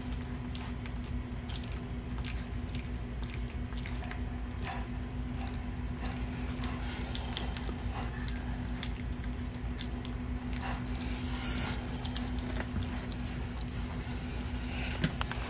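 Three-week-old Rottweiler puppy lapping and chewing soft kibble mush from a stainless-steel feeding pan: many small wet clicks and smacks, over a steady low hum.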